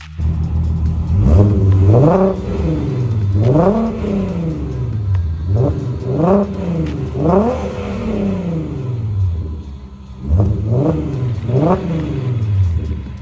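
Swapped 3.6-litre VR6 engine in a 1992 VW Corrado SLC, breathing through custom headers and a Magnaflow muffler exhaust, revved six times in roughly paired throttle blips. Each rev climbs and drops back to a steady idle.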